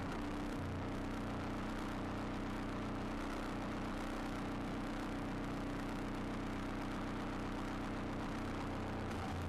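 Tractor engine idling steadily at close range.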